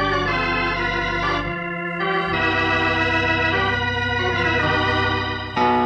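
Organ music from a radio drama's opening theme: sustained chords held over low bass notes. The bass drops out for a moment about a second and a half in, and a new chord is struck near the end.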